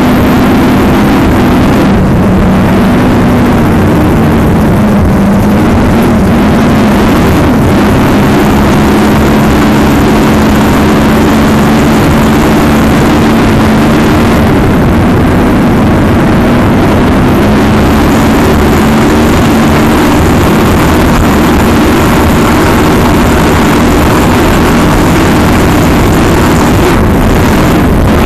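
Racing catamaran's engines running hard at around 90 to 100 mph, heard from on board as a loud, steady drone over rushing wind and water noise.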